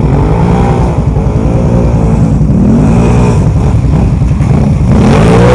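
Can-Am Renegade 1000 ATV's V-twin engine revving hard, its pitch rising and falling several times as the throttle is worked. It is loud.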